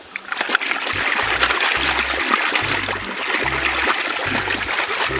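Water splashing and running as muddy toys are rinsed, starting about half a second in, over background music with a low bass line.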